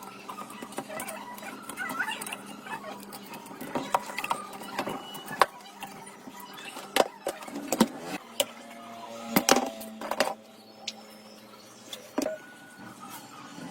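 Metal parts and hand tools knocking, clicking and scraping during workshop work on an old water pump, with a steady low hum underneath.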